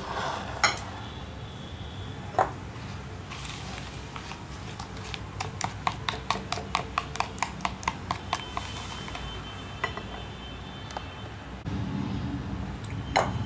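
A whisk beating liquid cake batter in a bowl, its wires tapping the bowl's side in a quick even rhythm, about five taps a second for a few seconds. A couple of single knocks come earlier.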